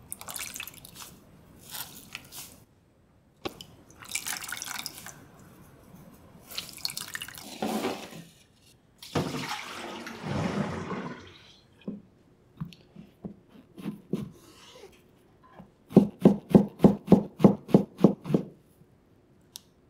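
Water splashing and dripping back into a pot as soaked freeze-dried tofu (koya-dofu) is lifted and squeezed out by hand. Later a knife cuts the tofu on a cutting board: a few scattered knocks, then a quick, even run of about a dozen strokes near the end.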